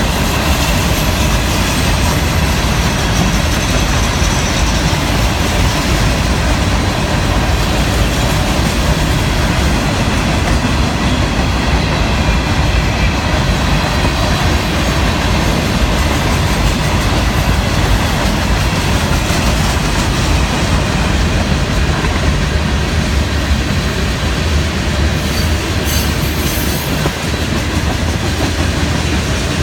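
Freight cars of a Florida East Coast Railway train rolling past close by: a loud, steady rumble of steel wheels on the rails.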